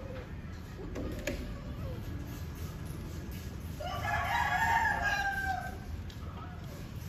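A rooster crowing once, about four seconds in: one drawn-out crow lasting about two seconds, its long final note falling slightly at the end.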